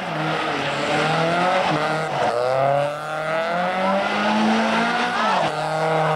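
Toyota AE86 Corolla's twin-cam four-cylinder engine revving hard as the car drifts. It climbs in pitch, drops about two and a half seconds in, climbs again and falls away near the end, over a hiss of tyre noise.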